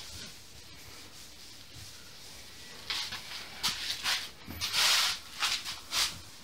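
Masking tape being pulled off the roll and pressed down: a series of short, sharp rasps from about three seconds in.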